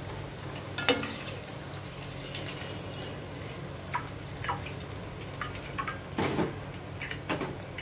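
Hot oil bubbling and crackling lightly in a steel pan as deep-fried chicken lollipops are lifted out with a steel slotted ladle, with scattered small ticks. There are a few sharper knocks of the ladle against the pan, about a second in and again near the end.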